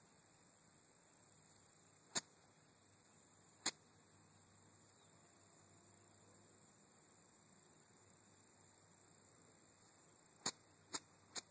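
Near silence with a faint steady high-pitched insect trill, broken by a few short sharp clicks; near the end come three clicks in quick succession, the first of them a golf iron striking the ball.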